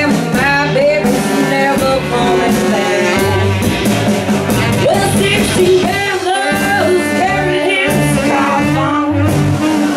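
Live band music: a woman singing over saxophone, upright bass, electric guitar and drums.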